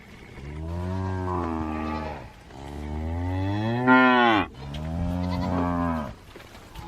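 Cattle mooing: three long calls one after another, the middle one rising in pitch and loudest just before it breaks off.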